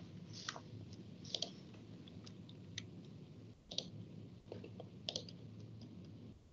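A few faint, irregular clicks at a computer, about eight spread over six seconds, over a low steady hum.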